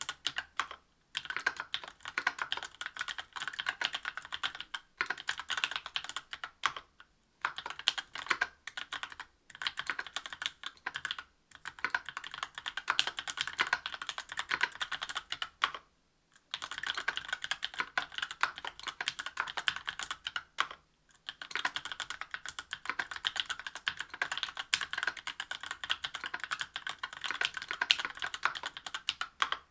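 Fast typing on a mechanical keyboard with stock, unlubricated Tecsee Oreo 63.5 g linear switches in an aluminium-plate Special Dolphin, with GMK keycaps. The keystrokes come in quick runs broken by several short pauses.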